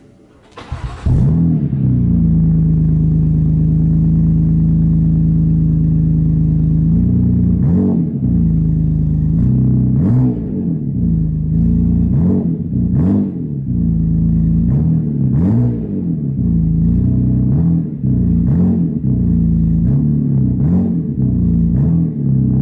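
BMW M4 F82's twin-turbo straight-six cold-starting: a short crank about a second in, catching straight into a steady raised idle. From about seven seconds in it is revved again and again in quick blips, each rising and falling back to idle.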